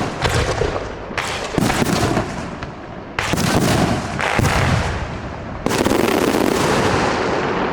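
Aerial fireworks show: about six sharp bursts in quick succession, each trailing off into dense crackling.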